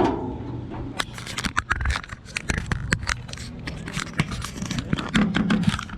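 A knock, then a busy run of sharp plastic clicks and scrapes close by: the window air conditioner's filter being worked out of its plastic front case.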